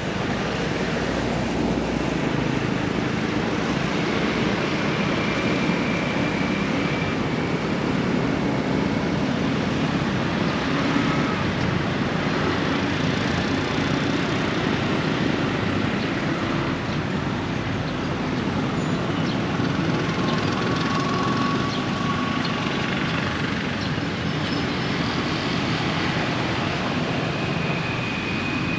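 A steady low rushing rumble of outdoor background noise, with a few short, faint bird calls: one about five seconds in, another around twenty seconds, and one near the end.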